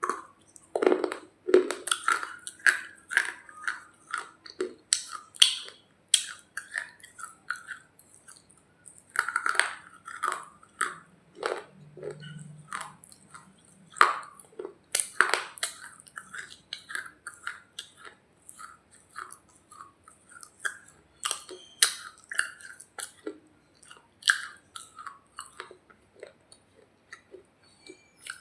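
Close-miked chewing and crunching of a hard piece of edible clay (a 'roti'): a steady run of irregular crisp crunches and crackles, with louder bites every few seconds.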